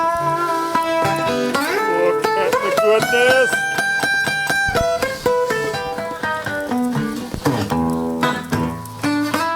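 Background music: an instrumental guitar break in a blues-country song, with plucked lead notes bent upward about two seconds in.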